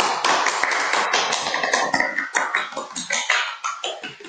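Applause: many hands clapping in a dense, steady patter that thins a little near the end.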